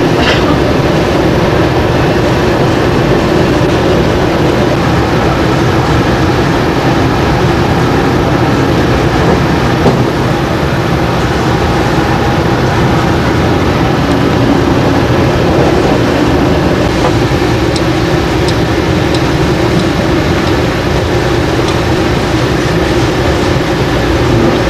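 A commuter train running, heard inside the passenger carriage: a loud, steady rumble with a constant drone.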